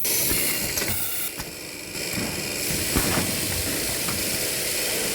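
Automatic copper tube end forming machine running: a steady hiss with a few sharp mechanical clicks about a second apart.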